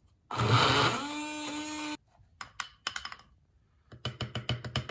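BlendJet portable battery blender running for under two seconds: a rough grinding start that settles into a steady whine as the blades churn a thick, low-water chutney mix, then cuts off suddenly. Two runs of quick clicks and knocks follow.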